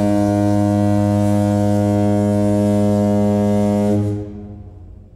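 A ship's horn sounding one long, low blast that stops about four seconds in and then dies away.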